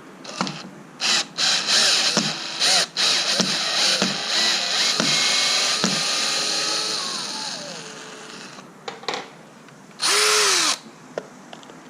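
Cordless drill/driver turning screws at a door's strike plate: several short trigger pulls, then a longer run of a few seconds whose pitch sinks as the motor slows, and one more short burst near the end.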